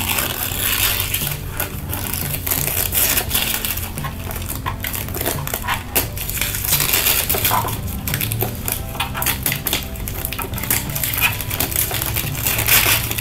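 Thin tracing paper being torn away from machine-stitched fabric: a continuous crackling, ripping sound made of many small quick tears.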